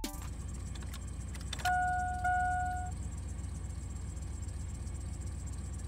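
A truck engine idling with a steady low rumble. About two seconds in, the Chevy S10's dashboard warning chime dings twice, with the ignition switched on.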